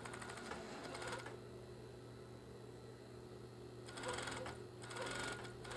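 Industrial coverstitch machine stitching down the elastic in a shorts waistband, running in three short bursts of rapid stitching: one about a second long at the start, then two more near the end. A steady low hum continues between the bursts.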